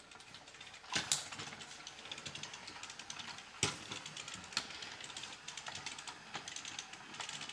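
Small battery-powered 3D-printed toy robots shuffle-walking: a steady, fast, faint ticking from the TT gear motor and the ratchets in the plastic feet. A few sharper plastic knocks come in, the loudest about a second in, as the robots are set down on the glass shelf.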